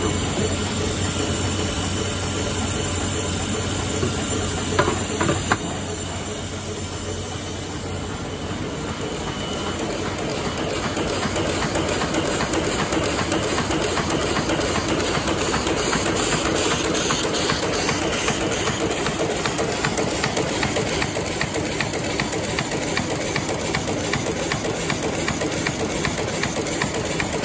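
Heidelberg Speedmaster SM 52 sheet-fed offset press running, with the steady hum of its air pump and a fast, even clatter from the feeder and sheet transport. A few sharp clicks come about five seconds in.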